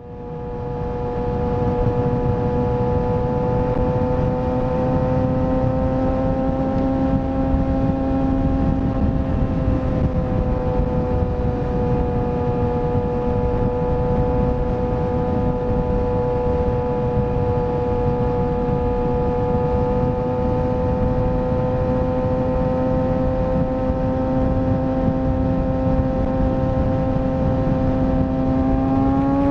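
Kawasaki ZX-6R inline-four engine running at a steady, high pitch under way, over a dense rushing noise. The note drifts gently and starts climbing near the end as the bike accelerates.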